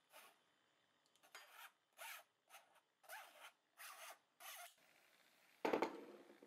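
Short rasping scrapes against a fine-mesh metal strainer, about seven strokes as the tomato sauce is worked through and off the mesh, followed near the end by one louder knock.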